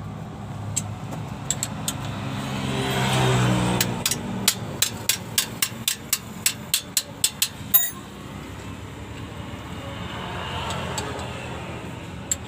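A hand wrench clicking on metal in a quick, even run of about a dozen strokes, roughly four a second, starting about four seconds in, while a bolt is worked on the clutch slave cylinder at a minibus gearbox. Traffic passes by twice behind it.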